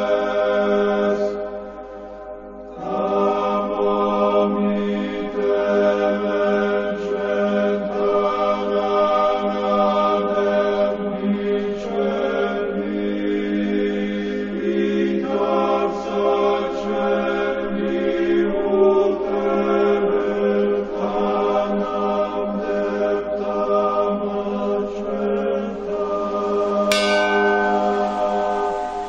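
An Orthodox church choir chanting in long held chords, with the voices shifting to a new chord every few seconds.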